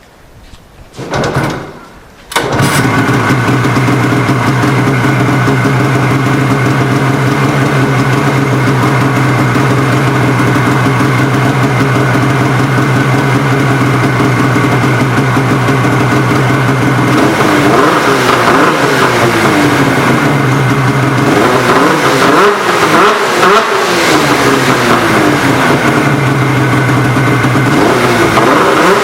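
2013 Polaris RMK Assault snowmobile's two-stroke twin, breathing through an aftermarket GGB mountain can exhaust. It starts about two seconds in and idles steadily, then is revved up and down repeatedly in the second half. It settles back to idle briefly before revving again near the end.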